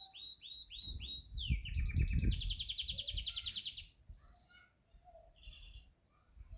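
Yorkshire canary singing: a run of quickly repeated short notes, about five a second, breaking into a fast, dense trill for about two seconds, then softer scattered notes. A low rumble sits under the trill.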